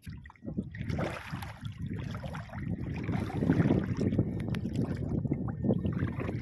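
Water sloshing and splashing irregularly as people wade through shallow sea water.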